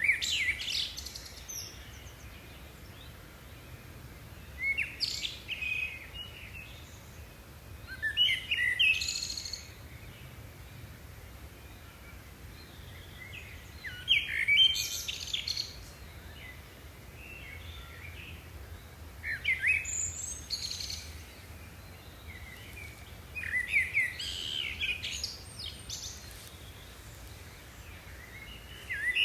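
A songbird singing short, rapid phrases of chirps and trills, repeated about every four to five seconds, over a faint steady low background rumble.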